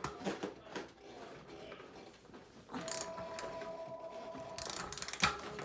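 Socket ratchet wrench clicking as a tight bicycle axle nut is worked loose, with a sharp louder click near the end. A steady tone runs for about two seconds in the middle.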